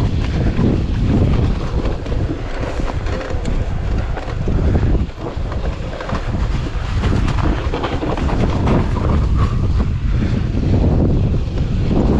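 Wind buffeting the action-camera microphone over the continuous rumble and rattle of a Haibike AllMtn 6 electric mountain bike rolling fast down snow-covered, frozen ground.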